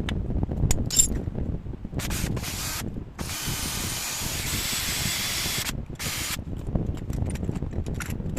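Three bursts of hissing, the longest about two and a half seconds, with a few clicks before them, over low wind rumble on the microphone.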